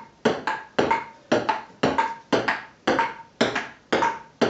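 Table tennis ball ticking back and forth in an unbroken rally: sharp clicks of the ball bouncing on the table and struck by the bats, a little over two a second, each with a short ping.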